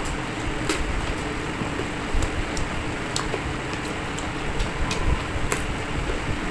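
Someone eating with the hands: chewing and mouth sounds with a few sharp clicks, over a steady background noise.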